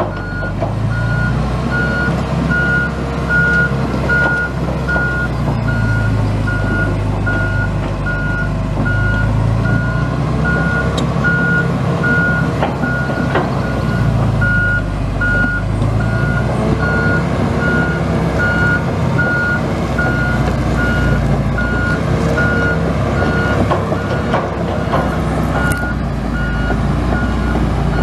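Hitachi ZX270LC-3 excavator working, its Isuzu four-cylinder turbo diesel running under hydraulic load, the pitch swelling and dropping every few seconds. Its motion alarm beeps steadily, about twice a second.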